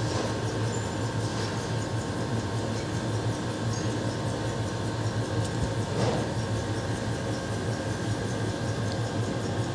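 Steady low machine hum with faint steady higher tones, and a light tap about six seconds in.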